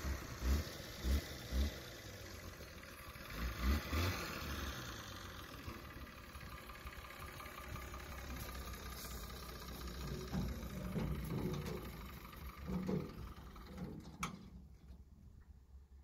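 A delivery truck's engine running, with a few low thumps in the first seconds; the sound cuts off suddenly near the end.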